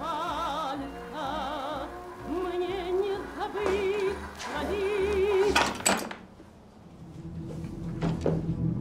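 A sung vocal record with wide vibrato playing on a gramophone, cut off with a loud scratch about six seconds in as the record is stopped. A low, dark drone of film score then swells.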